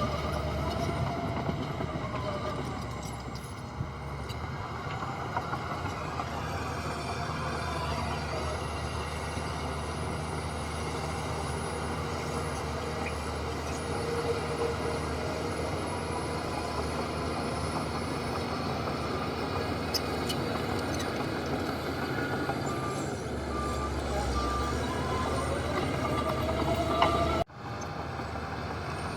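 Heavy diesel earthmoving machinery running steadily, its engine pitch rising and falling under load. Near the end a reversing alarm beeps in short, evenly spaced pulses, and the sound cuts off abruptly shortly before the end.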